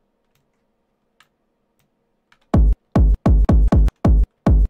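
Near silence with a couple of faint clicks, then from about halfway in an isolated techno kick drum sample played back over and over at an uneven pace, each hit short and deep with a brief bright attack. The kick is being auditioned after a click was trimmed from its tail, and it plays cleanly with no click or pop.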